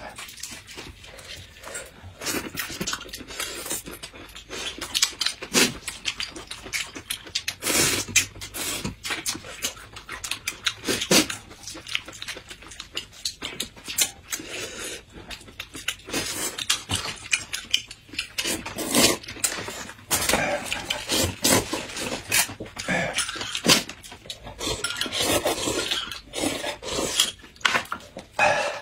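Close-miked eating sounds: irregular chewing, biting and mouth smacking.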